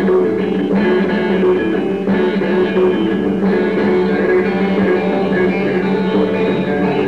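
Solo electric guitar, a Danelectro in DADGAD open tuning, playing a picked melody over a held low drone note. The live recording sounds dull and muffled.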